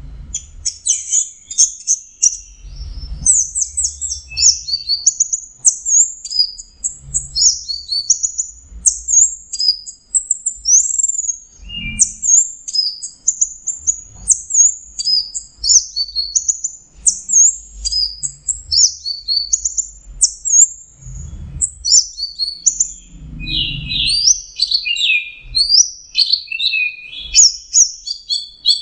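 Orange-headed thrush (anis merah) singing a long, rapid, varied song of high chirps and whistled phrases with hardly a pause: a lure song used to coax a silent, stressed thrush into singing. A few soft low thumps come underneath.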